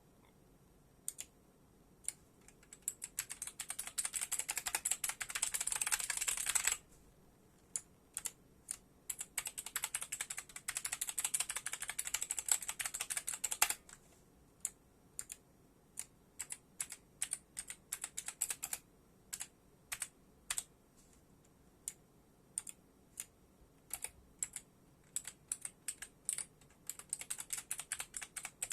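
Keys of an ENTUS K570G optical-switch gaming keyboard being pressed: two long, rapid flurries of keystrokes, then single presses about one or two a second.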